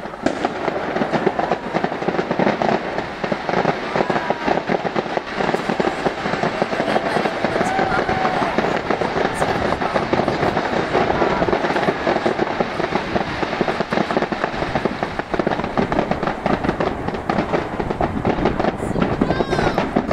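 Fireworks display going off in a dense, continuous crackle of many rapid pops and bangs.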